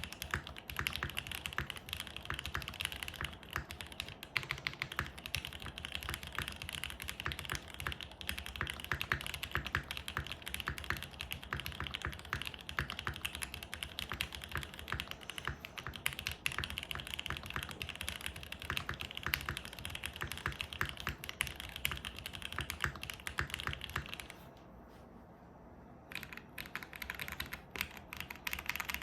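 Fast, continuous typing on a Mode Sonnet custom mechanical keyboard with lubed SP-Star Meteor White linear switches, a carbon fibre plate with plate foam, and GMK keycaps. The typing pauses for about two seconds near the end, then resumes.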